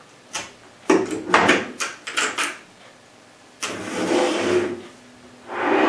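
Lid of a portable lockbox case being swung shut: a quick run of knocks and clicks over the first two and a half seconds. Then two longer scraping sounds as the closed case is handled on the countertop.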